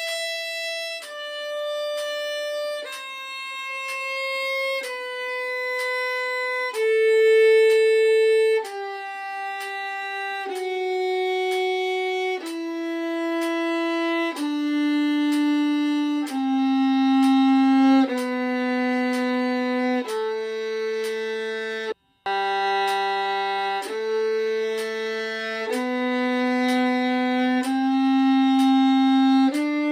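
Solo violin playing a G major scale in long bowed notes, each held about two seconds. It steps down to the low G about two-thirds of the way in, breaks off for an instant, then climbs back up the scale.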